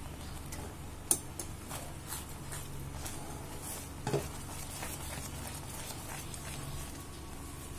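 Silicone spatula stirring thick almond halwa paste as it cooks in ghee in a non-stick pan, with a faint sizzle. There are a few light knocks of the spatula against the pan, the sharpest about a second in and another about four seconds in.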